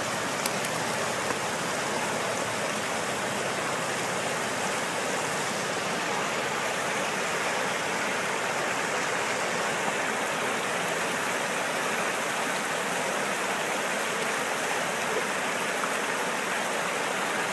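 Steady rush of a fast mountain river running over rocks, with two small ticks in the first second and a half.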